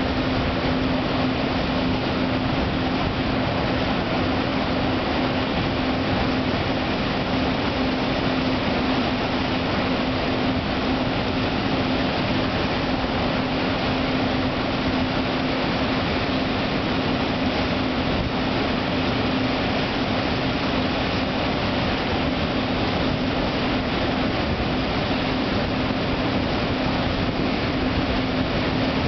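The Stena HSS Explorer's gas turbines and waterjets running under power as the high-speed ferry pulls away, a loud steady rush with a steady hum held underneath.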